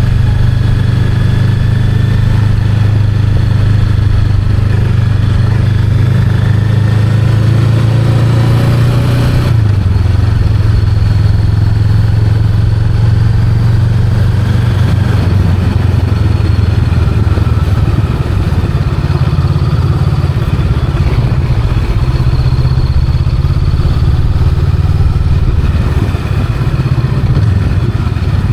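Honda Rebel 500's 471 cc parallel-twin engine running under way. The pitch climbs from about six seconds in, drops back sharply a little before ten seconds, then holds steady.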